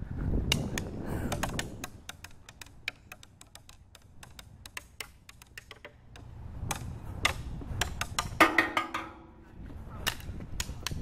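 A thin wooden stick tapping and knocking sharply again and again, with wind and handling rumble on the microphone. About eight and a half seconds in comes a short, slightly falling yell.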